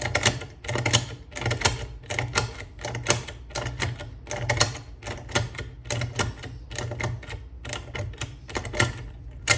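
Self-impressioning tool being worked back and forth in a Securemme 3+3 lever safe lock, giving rapid, uneven metallic clicking, several clicks a second, as the tool's pins are set against the lock's anti-pick levers.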